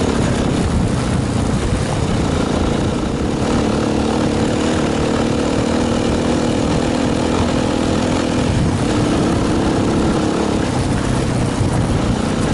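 Motorcycle engine running steadily while riding along a gravel road, with rough wind and road noise underneath.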